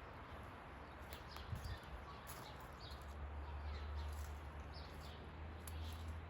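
Footsteps on a forest track, with short, faint bird calls over a low steady rumble.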